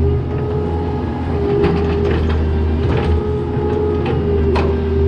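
Mini excavator's diesel engine running steadily under load with a constant whine as the bucket digs a trench, with several short sharp knocks and scrapes from the bucket working the soil.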